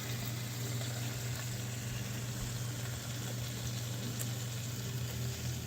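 Hot hamburger grease being poured off a small electric mini grill: an even trickling hiss mixed with sizzle, over a low steady hum.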